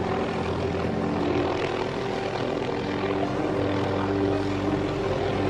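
Helicopter hovering, its rotor and engine running steadily.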